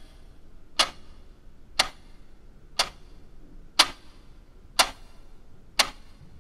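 Sharp, even ticking, one tick a second, like a clock counting the seconds.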